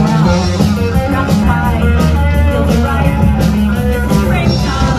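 Rock music with guitar, drums and a singing voice, playing loudly with a steady beat.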